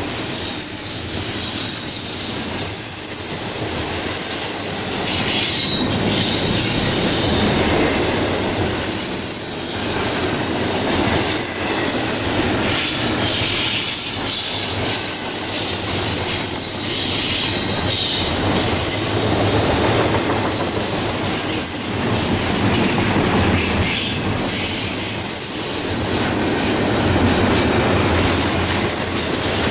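A long freight train of double-stack container cars rolling past steadily, its steel wheels rumbling and rattling over the rails. Thin high-pitched wheel squeals come and go above the rumble.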